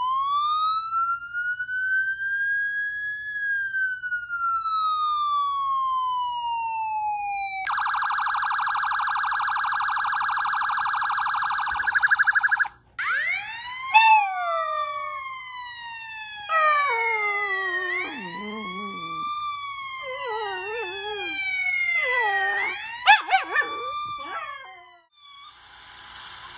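Police siren sound, first a slow wail sweeping up and down, then a fast yelp from about 8 s in. From about 13 s a Samoyed puppy howls along, its howls rising and falling over the siren's sweeps. Near the end the siren stops and a quieter clip of cats meowing plays from a phone.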